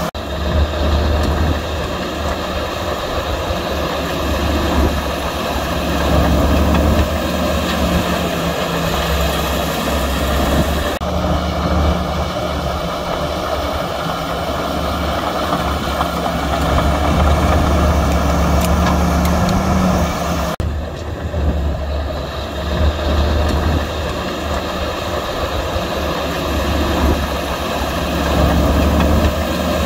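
Heavy diesel engines of earthmoving machinery running steadily with a deep, constant hum. The sound changes abruptly about 11 and 21 seconds in.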